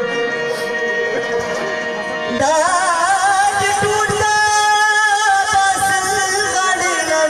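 Live rabab and harmonium music. A man's singing voice comes in about two and a half seconds in, holding long, wavering notes over the instruments.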